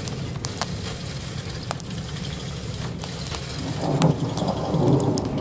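Rain falling with scattered drop ticks over a low rumble, and a rumble of thunder swelling about four seconds in.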